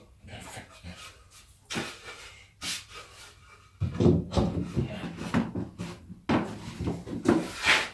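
Wooden stair treads being fitted by hand into a wooden box frame: the boards knock and scrape as they are set down and slid into place. From about four seconds in there is louder wood-on-wood rubbing with dull thumps, and a loud scrape near the end as the bottom tread is pressed home.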